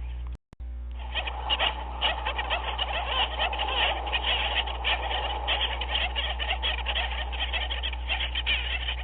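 Dense chorus of many animals calling at once, short croaking calls overlapping over a steady low hum. It drops out to silence for a split second about half a second in, where a looped recording restarts.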